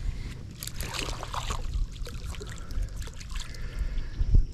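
Small channel catfish splashing at the water's surface as it is reeled in on a bobber rig and lifted out of the water, with a thump near the end.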